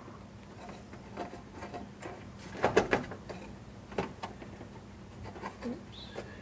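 Plastic pop clips and trim fasteners being pressed into a truck's plastic grille and radiator support cover, giving sharp plastic clicks. A quick cluster of three or four clicks about two and a half seconds in is the loudest, with a single click at about four seconds and a few fainter ones around them.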